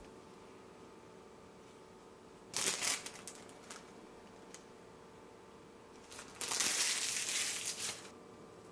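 Crinkling and rustling of plastic food packaging: a short rustle about two and a half seconds in, then a longer, louder crinkle from about six to eight seconds.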